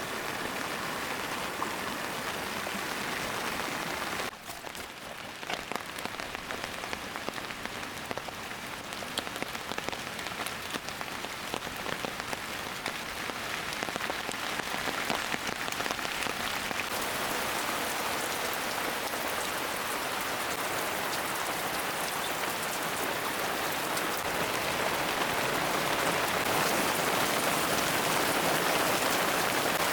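Rain falling steadily on a surface, with individual drops ticking. It drops away suddenly about four seconds in, then grows gradually heavier and louder.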